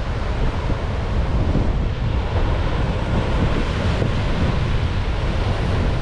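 Rough Atlantic surf breaking and washing over a rocky shore, a steady, unbroken roar of white water, with wind buffeting the microphone and adding a low rumble.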